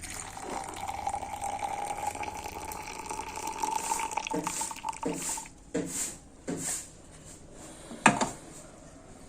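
Hot herbal decoction (kadha) poured in a steady stream for about five seconds, then a few short knocks and drips.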